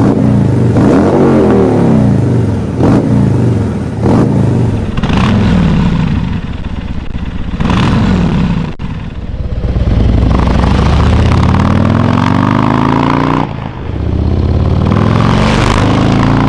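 A Harley-Davidson CVO's big V-twin engine is revved in a series of short blips. The bike then pulls away, its pitch climbing in two long rising runs with a brief dip between them, a gear change.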